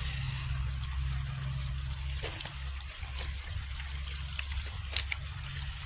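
Rain runoff water trickling and running steadily into an 18-inch culvert pipe, with a low steady rumble underneath and a few faint clicks.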